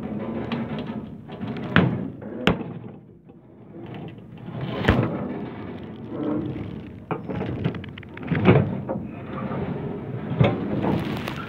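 Massey Ferguson 124 small square baler running, a steady mechanical rumble broken by several sharp clanks as its Sure-Tie knotter works the twine. The knotter is out of alignment and failing to tie.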